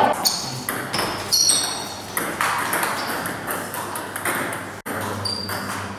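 Table tennis ball being struck back and forth in a rally, a series of sharp clicks off the bats and table, several with a short high-pitched ping. The sound drops out for an instant just before five seconds in.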